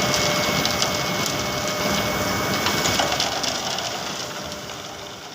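Steady, dense crunching and crackling noise that fades away over the last couple of seconds.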